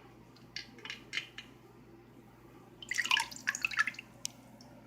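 Light-up fidget spinners being taken out of water: a few small clicks, then a short burst of splashing and dripping about three seconds in.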